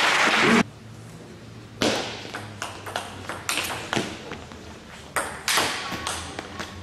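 Crowd applause that cuts off abruptly about half a second in, then a table tennis rally: the ball clicking off the table and the rackets, about two sharp ticks a second.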